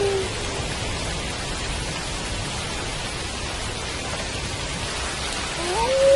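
Steady rain. A wolf's howl slides down in pitch and ends just after the start, and a new howl rises in near the end and levels off.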